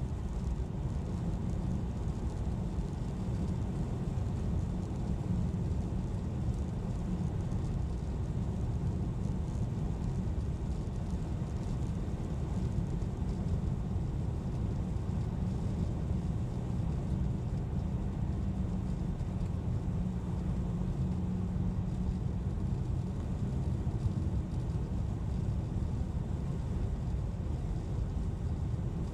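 A car driving at steady speed: an even, low rumble of road and engine noise that doesn't change.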